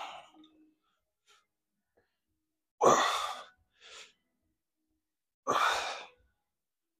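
A man's loud, forceful breaths during heavy barbell hip thrusts, straining with each rep: two hard exhalations about two and a half seconds apart, with a quieter breath between them.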